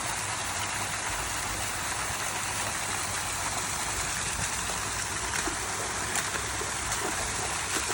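Steady rushing of water, even and unbroken.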